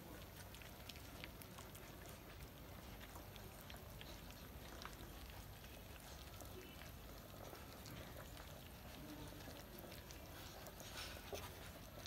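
Faint, scattered wet smacking and clicking of several puppies eating minced raw pork from a stainless steel bowl.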